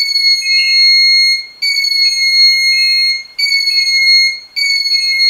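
Electronic alarm tone of a paranormal-investigation detector going off: a steady, high-pitched beep sounding in long pulses of about a second or more, broken by short gaps, four times. It signals that the device has been triggered.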